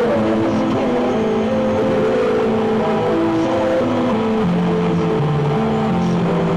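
Heavy metal music at a constant loud level, with a melody line stepping from note to note several times a second over a dense, noisy backing.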